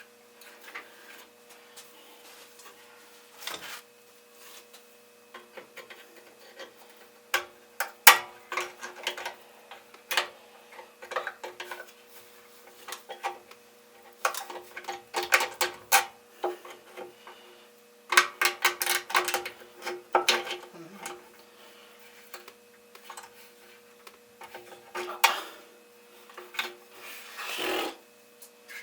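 Hand tools working on the mower's metal handle fittings: bursts of rapid clicking and knocking with pauses between, over a faint steady hum.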